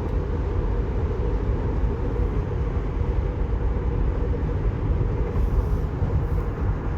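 Steady low road and tyre rumble inside the cabin of a moving Tesla Model 3.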